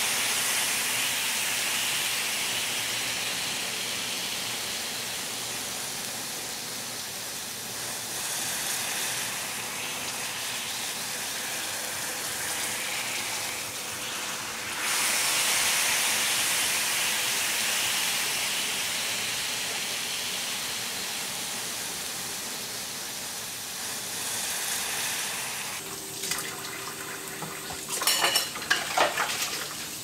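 Steak sizzling in a frying pan, a steady hiss that swells louder about halfway through. Near the end, dishes clink and a tap runs into a sink.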